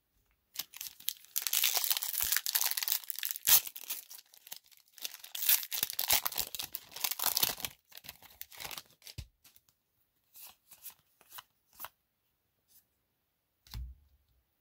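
The foil wrapper of a Magic: The Gathering collector booster pack being torn open and crinkled, in two long spells of tearing and rustling. Near the end come a few soft clicks as the cards are taken out and handled.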